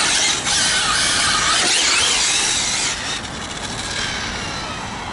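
Arrma Infraction 6S brushless RC car under hard power, its tires spinning and scrubbing on asphalt over the whine of its electric motor. It is loud for about three seconds, then drops away to a fainter, falling whine.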